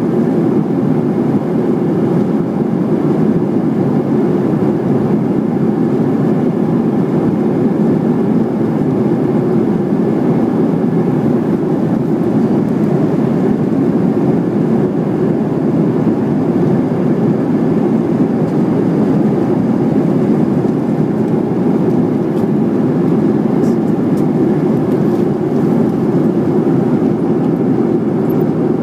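Steady cabin noise of a Boeing 737-700 in level flight, heard from a window seat over the wing: a constant low rumble of its CFM56-7B jet engines and the airflow over the fuselage.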